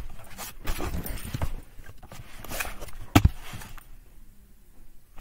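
Irregular knocks and shuffling from a handheld camera being carried about, with footsteps, and one sharp knock about three seconds in. It grows quieter near the end.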